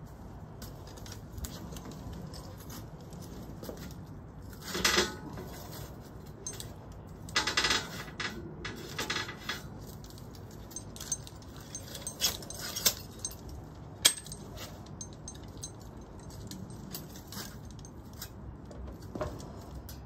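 Steel crucible lifting tongs and their chain clinking and rattling in short metallic clicks while holding a crucible full of molten copper, with a couple of louder bursts about five and seven seconds in.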